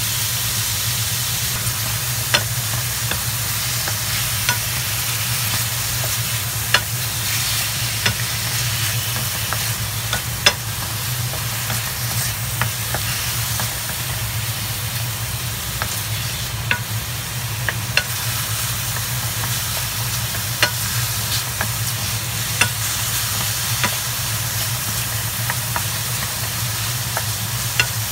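Sliced chicken sizzling in a hot stainless steel frying pan, stirred with a wooden spatula that clicks and scrapes against the pan every second or two. A steady low hum runs underneath.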